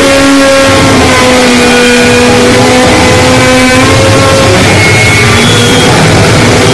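Harsh noise music: a dense, distorted wall of noise held at a constant, very loud level, with steady feedback-like tones sustained over it that drift slightly in pitch and shift about halfway through.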